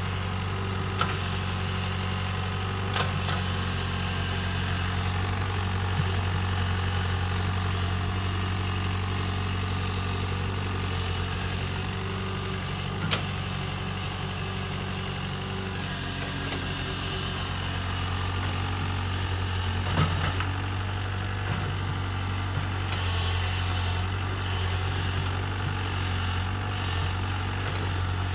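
Mini excavator's diesel engine running steadily as the machine digs in wet mud, with a few sharp knocks now and then.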